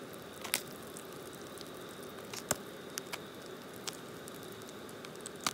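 Jiffy Pop popcorn kernels popping now and then inside the foil pan, scattered sharp pops over the steady hiss of an MSR canister stove burner.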